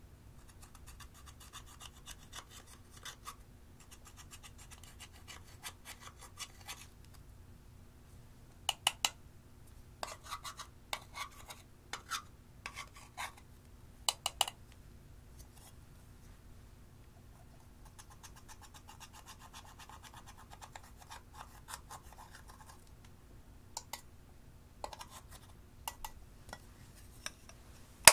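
A thin metal tool scratches and crumbles pressed eyeshadow powder in a plastic palette. Midway comes a run of sharp, loud taps as the palette is knocked against a glass dish, and a few more clicks come near the end.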